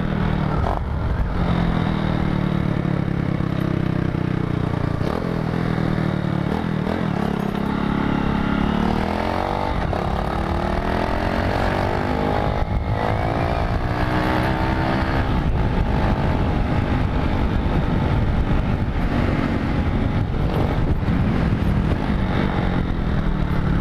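Motorcycle engine with an aftermarket USA Racing exhaust, running steadily while riding, then pulling hard with the revs climbing from about eight seconds in and easing off around fifteen seconds.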